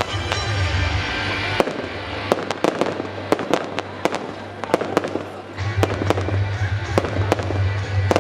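Fireworks salute: a rapid, irregular series of sharp shell bursts and cracks over loud music with a heavy bass, the bass dropping away for a few seconds in the middle.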